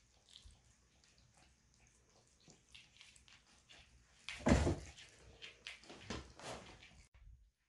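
A kitten playing with a wand toy on a laminate floor: scattered light taps and scrapes, with a louder thump about four and a half seconds in.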